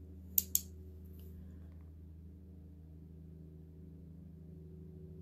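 Lawnmower engine running, a faint steady hum. Two sharp clicks close together come about half a second in.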